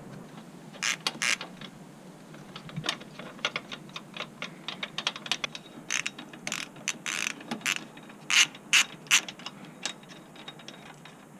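Socket ratchet wrench clicking in quick, irregular runs while a rear engine-hanger bolt is backed out.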